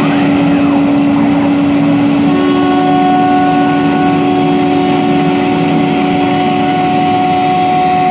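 CNC gantry wood router running, its spindle giving a steady whine of several held tones over the noise of the cut. The tones change about two seconds in, when a higher tone joins.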